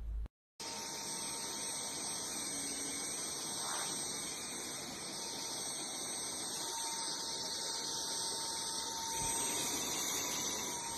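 Cordless stick vacuum cleaner running steadily: a rush of air with a thin high-pitched whine.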